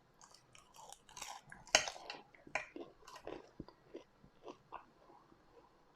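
Close-miked chewing of crunchy food, with irregular crackly crunches that are loudest about two seconds in and die away after about five seconds.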